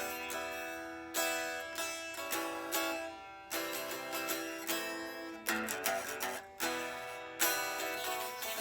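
Unplugged acoustic guitar playing a song's instrumental opening: chords struck about once a second, each left to ring and fade.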